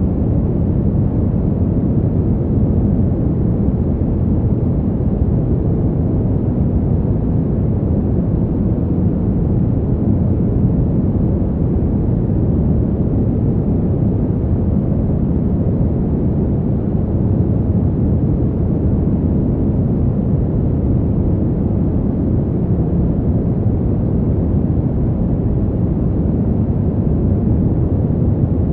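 Fan heater's blower running steadily: a constant, even air noise that is mostly low-pitched, with little high hiss.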